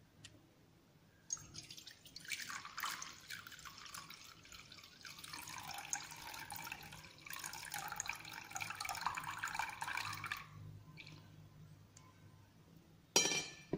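Rinse water being poured off washed whole masoor lentils from one steel bowl into another, splashing into the metal bowl in two long pours from about a second in until about ten seconds. A single sharp metal knock near the end.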